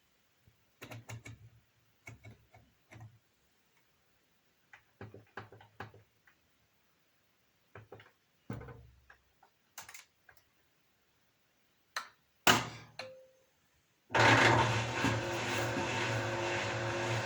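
Beko washing machine's controls being clicked in several short groups, then a brief beep; the machine then starts running with a steady hum.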